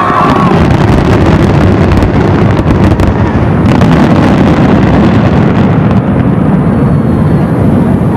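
Fireworks going off in a dense, continuous barrage: overlapping booms and crackling with a heavy low rumble, and a few whistling rockets.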